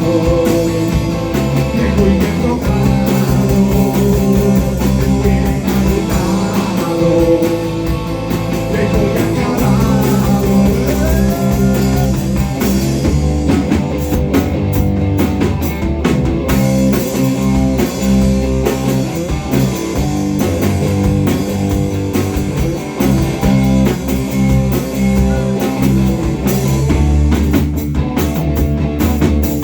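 A rock band playing live in rehearsal: guitar over bass and drums, with bending guitar lines in the first dozen seconds.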